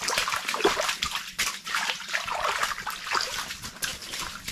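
Water splashing and sloshing in an ice-fishing hole: a run of quick, irregular splashes.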